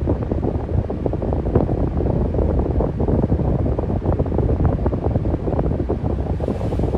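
Electric fan running steadily, its airflow giving a constant, low, even whoosh with some wind buffeting on the microphone.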